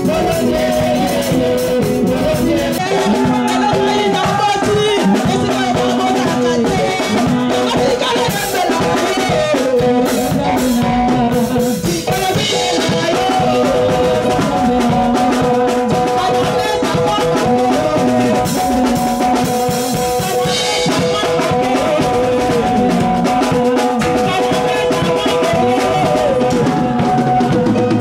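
Music with a drum kit keeping a steady beat under a melody.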